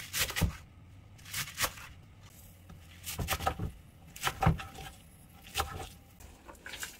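A utensil stirring and scraping in cookware, in short irregular clusters of knocks and scrapes with pauses between.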